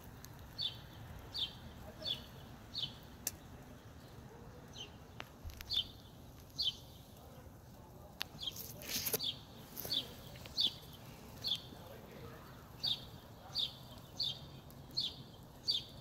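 A bird calling over and over, a short high falling chirp about once a second, over a faint steady outdoor hum. There is a brief rush of noise about halfway through.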